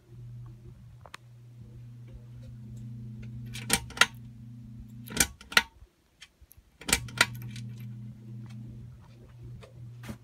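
Hampton Bay Kennesaw 42-inch ceiling fan motor giving a steady low electrical buzz, a buzz the owner calls a lot of buzzing noise. In the middle come several sharp clicks in pairs, and the buzz cuts out for about a second before coming back.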